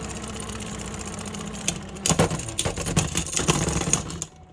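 Two Beyblade X spinning tops whirring steadily in a plastic stadium late in a stamina battle. About two seconds in they break into a quick run of sharp clacks and rattles as the tops collide and wobble. The clatter stops abruptly just before the end as the battle finishes.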